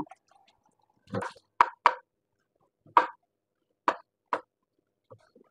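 A cleaver knocking on a wooden cutting board as garlic and shallots are chopped: about seven separate sharp chops at an uneven pace.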